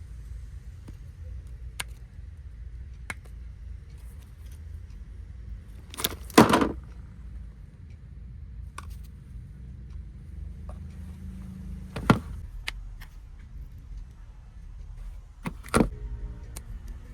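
Scattered clicks and knocks of hard objects being handled and set down, the loudest a short clatter about six seconds in, over a low steady rumble.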